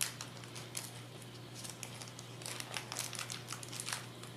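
Small plastic accessory bag of a hobby servo crinkling and rustling in the hands as the servo horns are taken out of it, a quick run of sharp little crackles that grows busier in the second half. A low steady hum runs underneath.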